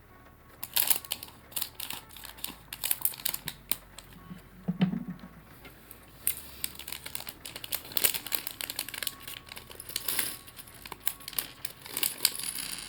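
Plastic LEGO parts bag crinkling as it is handled and opened, with many small plastic LEGO pieces clicking and clattering against each other in irregular bursts.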